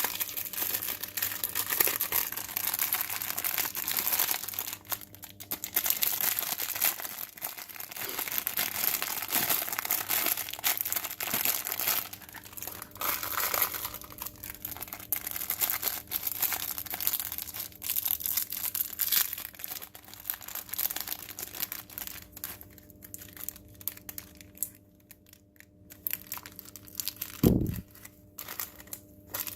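Crinkling plastic packaging and small plastic parts and screws being handled, with many small clicks and irregular rustling. One short low thump near the end.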